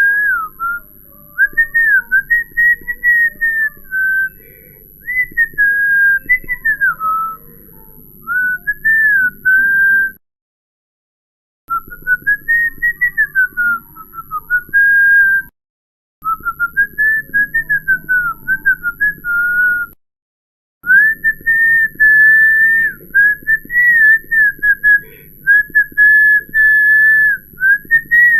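A person whistling a wandering, tune-like melody in short phrases that slide up and down in pitch. The whistling is broken three times by brief spells of dead silence.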